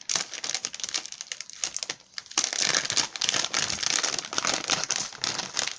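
Clear plastic bag crinkling as hands handle it with a rhinestone case inside, a dense crackle that grows louder a little before halfway through.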